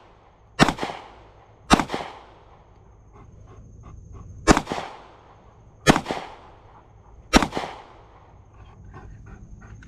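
Five gunshots at a shooting range, unevenly spaced, each a sharp report with a short echoing tail.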